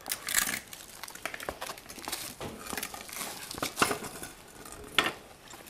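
Metal scooter wheel parts being handled: irregular clicks, clinks and rustling as a just-unscrewed peg and axle hardware are taken off, with two sharper knocks near the end.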